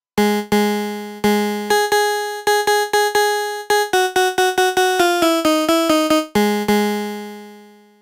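kiloHearts KHs One software synthesizer playing a short phrase of notes, each starting sharply and fading, some over a low note. About halfway through, the notes come faster and slide in pitch from one to the next (portamento). The last note rings out and fades near the end.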